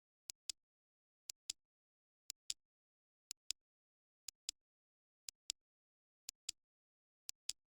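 Clock ticking: a pair of short, sharp clicks once a second, the second click of each pair louder.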